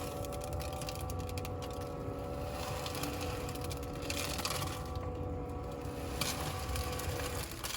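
A small motor running steadily with a hum and a gritty, crackling rattle, cutting off near the end.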